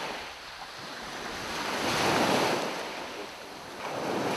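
Small waves washing up on a pebbly beach: a rushing noise that swells to its loudest about halfway through, falls back, and rises again near the end.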